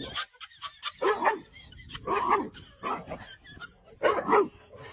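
A dog barking in a series of short, pitched barks, roughly one a second.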